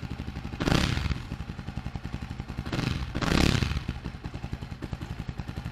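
Jawa 42 2.1's single-cylinder engine running just after a first-press electric start, having stood unused for a month. It runs with an even, rapid beat and gets louder twice briefly, about a second in and again about three seconds in.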